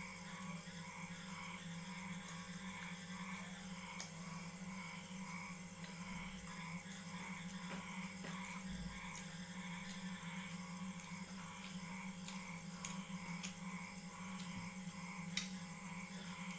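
Faint eating sounds, a few soft clicks, over a steady low hum with a faint tone pulsing about three times a second.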